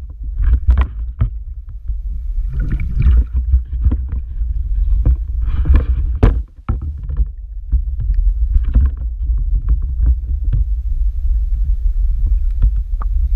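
Muffled underwater noise from a camera held just below the sea surface: a constant deep rumble of moving water, broken by irregular knocks and short splashy bursts as the water churns against the camera.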